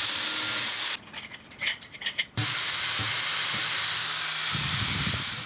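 Angle grinder grinding down a steel helicoil tool to shorten it, a steady hissing grind. It breaks off about a second in and starts again about a second and a half later.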